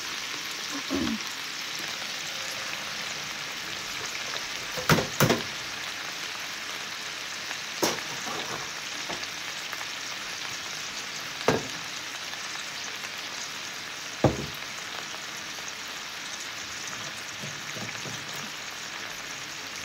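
Purple flowering kale and white chard sizzling in a pan of hot sesame oil and browned garlic: a steady frying hiss, broken by a handful of sharp clicks, the loudest about five seconds in.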